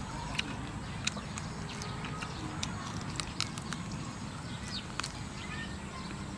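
Close-up eating sounds from a person chewing and sucking meat off a roasted duck drumstick: irregular lip smacks and mouth clicks, roughly two a second.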